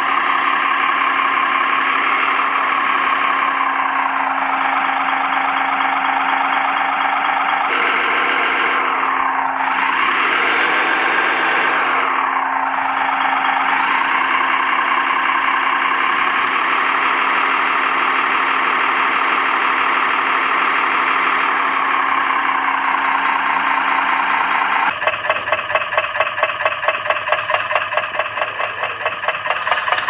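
RC truck's simulated diesel engine sound from its onboard sound unit, running steadily, with a dip and rise in pitch around ten seconds in as it revs. About twenty-five seconds in it gives way to a different engine sound, an evenly pulsing, knocking chug from a model crawler tractor.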